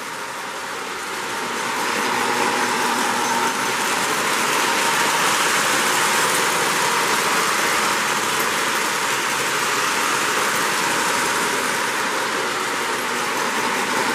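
Lionel 736 Berkshire toy steam locomotive and its cars running on three-rail O-gauge track: a steady rumble and whir of wheels and motor that grows louder over the first couple of seconds as the train comes near, then holds level.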